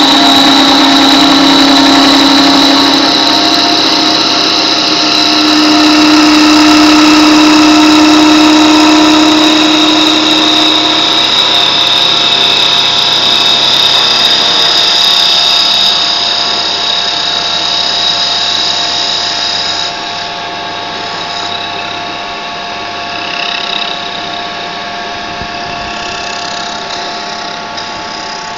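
Hempel copy lathe running as it turns a wooden spindle: a loud, steady machine sound with a high whine and a lower hum that steps up in pitch about five seconds in. It gets quieter about twenty seconds in.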